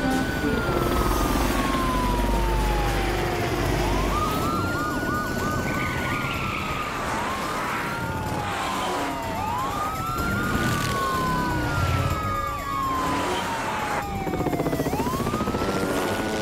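Several police sirens wailing and overlapping, each rising quickly and then falling slowly, with a fast warbling yelp about five seconds in.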